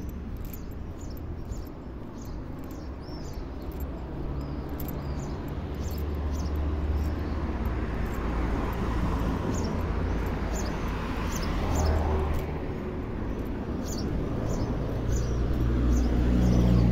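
Street traffic: engines running low, and a car passing around the middle with rising then falling engine and tyre noise. Small birds chirp repeatedly over it.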